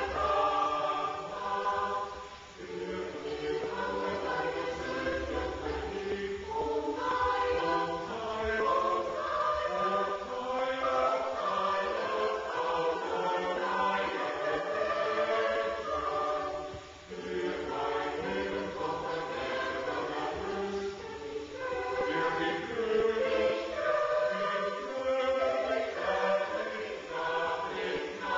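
Mixed choir of men's and women's voices singing in parts, with short breaks between phrases about two seconds in and again around seventeen seconds.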